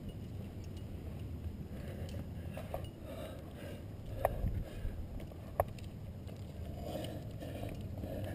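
Rock climber's hardware clinking at the harness, with two sharp clicks about four and five and a half seconds in, over a steady low rumble on the helmet-mounted camera as the climber moves on the rock.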